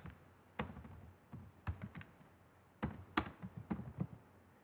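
Computer keyboard being typed on: irregular single keystrokes, some in quick little runs, with short pauses between them.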